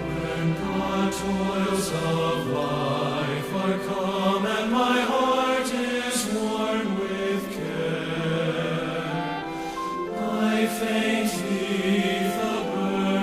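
Background music: a slow song sung by several voices together, held notes changing every second or so.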